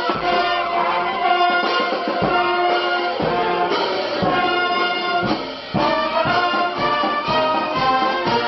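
Brass band playing a tune in unison: trumpets, saxophones, clarinet and sousaphone over a bass drum keeping a beat about once a second. The playing dips briefly about five and a half seconds in, then goes on.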